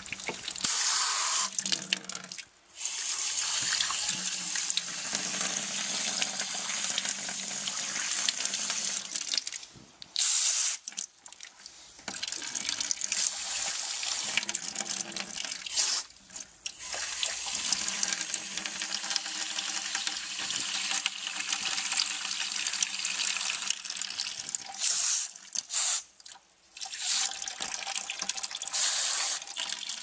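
Water washing out an air handler's condensate drain pan and pouring from the PVC drain pipe into a bucket. The water runs with a steady hiss that cuts off sharply and restarts about four times.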